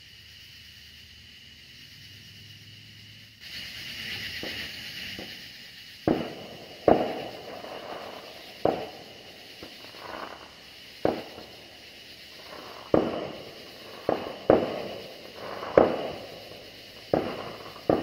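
Fireworks going off in a string of sharp bangs, about ten in the last twelve seconds, each with a short echoing tail. Under them a steady high-pitched cicada chorus swells louder about three seconds in.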